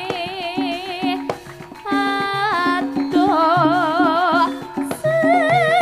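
A Javanese gending song sung live: a singer holds long notes with wide vibrato over an instrumental accompaniment that keeps a steady, repeating beat. The music drops back briefly about a second and a half in, then the voice comes in again.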